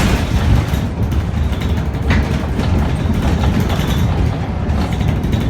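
Scania bus with a ZF automatic gearbox running under way: a steady, heavy low engine rumble with road and body noise, and a short sharp click about two seconds in.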